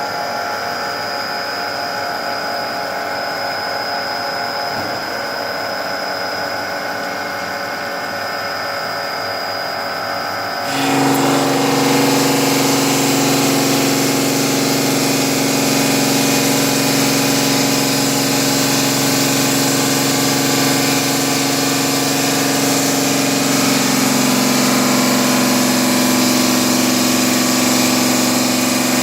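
PLC-600 stone-cutting machine for granite and marble slabs running steadily. About eleven seconds in, it grows louder, with a stronger steady hum and a broad hiss.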